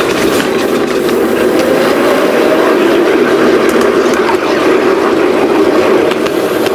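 5-inch gauge miniature locomotive running along its track, a steady drone of the loco and its wheels on the rails.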